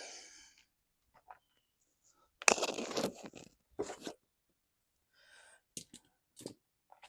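Handling noise: scraping and crinkling in short bursts, loudest about two and a half to four seconds in, then a few fainter rustles and clicks near the end.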